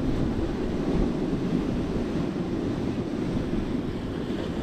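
Steady low noise of a rough sea breaking on the shore, mixed with wind buffeting the microphone.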